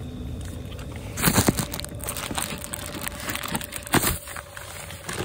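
Crunching, crinkling handling noise with several sharp knocks, starting about a second in, over a faint steady tone.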